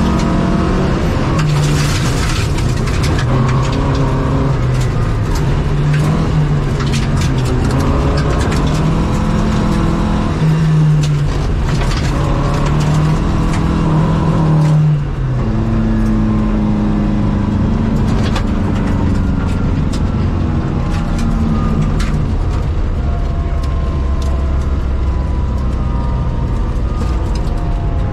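Opel Rallye Kadett's four-cylinder engine heard from inside the cabin at speed on a gravel stage, pulling hard with a brief lift and gear change about fifteen seconds in. Gravel clicks and rattles against the car's underside throughout, and the engine note falls slowly over the last ten seconds as the car slows.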